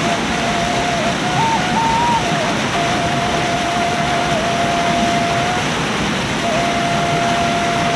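Steady rushing of flowing water, with a thin, steady whistle-like tone that holds one pitch for long stretches and steps briefly higher a couple of times in the first few seconds.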